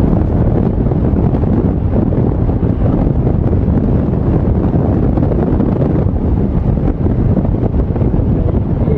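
Wind buffeting the microphone: a loud, steady low rumble without clear tones or breaks.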